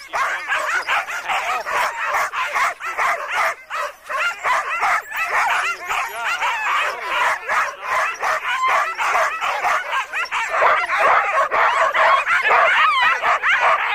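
Many sled dogs barking and yelping at once in a dense, unbroken chorus.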